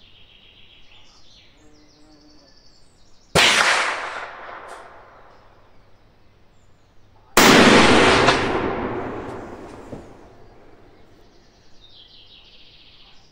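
Two rifle shots about four seconds apart, the second louder, each followed by a long echo under the covered firing point of a shooting range.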